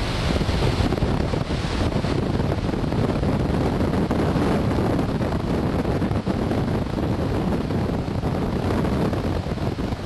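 Steady rushing of air past an engineless glider's cockpit in flight, with a slightly brighter hiss in the first couple of seconds.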